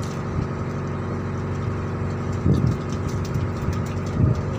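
Fishing boat's engine running steadily at a low, even speed, with two short louder low sounds about halfway through and near the end.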